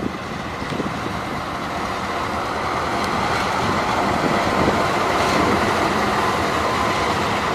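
CC206 diesel-electric locomotive passing close at slow speed, engine running and wheels rolling on the rails, growing louder as it comes alongside. A thin steady whine joins the rumble in the later part.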